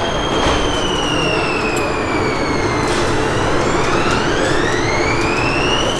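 Prague metro train's electric traction motors whining over the rumble of the platform: a whine that falls in pitch over the first half as a train slows, then another whine rising steadily in pitch through the second half as a train accelerates.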